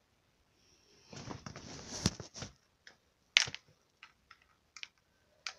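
Close handling noise: a soft rustle with a few sharp clicks and light taps.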